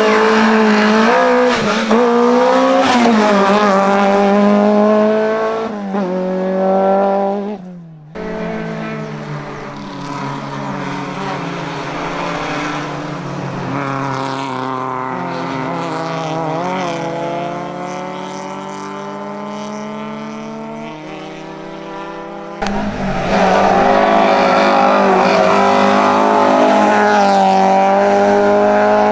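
Hillclimb race car engines accelerating hard through the gears, the pitch climbing and dropping back at each upshift. About eight seconds in the sound cuts to a quieter, more distant car climbing through its gears, and a few seconds before the end a loud, close car cuts back in.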